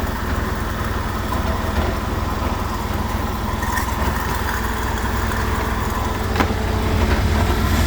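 Beko WMY81283LMB2 washing machine spinning with an unbalanced load, a teddy bear, in service mode: a steady low rumble from the drum.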